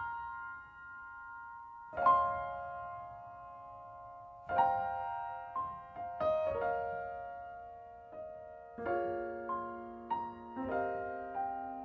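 Slow, gentle piano music: soft chords and single notes, each left to ring and fade.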